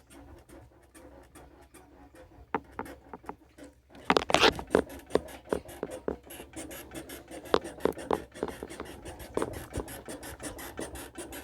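Honda CG motorcycle, switched off, making a strange scraping and clicking noise as it is worked. There is faint scraping at first, then a dense run of sharp clicks and scrapes from about four seconds in. The owner puts it down to jumping speed bumps and potholes and thinks the bushings could be to blame.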